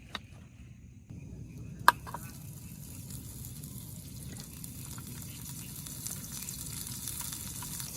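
Steady rain falling, a hiss that starts suddenly about a second in. A single sharp click, the loudest thing, comes just before two seconds.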